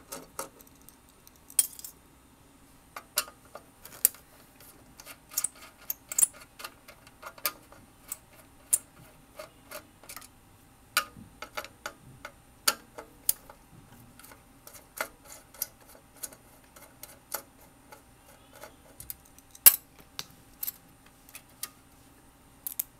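Screwdriver backing out the screws that hold a monitor's power supply board to its sheet-metal chassis: a run of sharp, irregular metallic clicks, roughly two a second, with one louder click about three-quarters of the way through.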